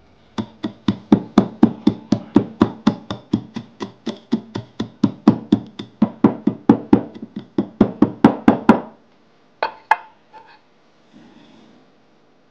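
Wooden pestle pounding roasted peanuts and dried shrimp in a wooden mortar, steady rhythmic strokes at about four a second that stop near the end, followed by a couple of sharper knocks.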